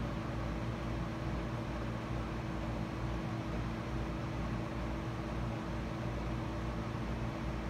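Steady mechanical hum with a constant hiss and a few held low tones; nothing starts, stops or changes.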